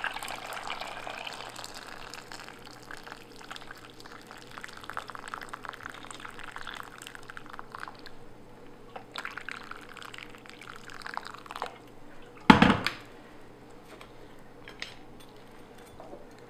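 Water poured from a jug into a pot of cracked boiled eggs and tea leaves, splashing steadily for about eight seconds, then pouring again for a few seconds more. A single loud thump comes about twelve seconds in.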